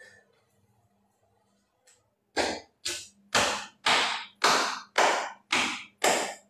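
A run of about eight sharp hand smacks, struck about two a second at an even pace, starting about two and a half seconds in.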